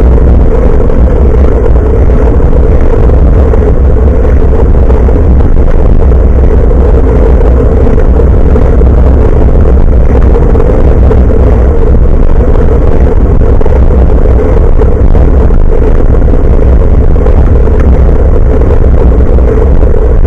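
Loud, steady wind and road rumble on the built-in microphone of an action camera hanging from a moving bicycle's handlebars, with a constant mid-pitched hum underneath.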